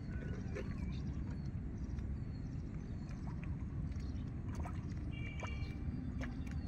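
Open-field ambience: a steady low rumble with small birds chirping now and then over it.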